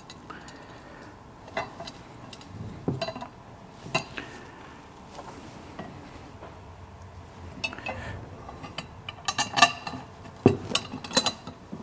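Metal clinks and knocks of bolts and black steel tube wheelbarrow frame parts being handled and fitted by hand: a few scattered at first, then a quick cluster near the end.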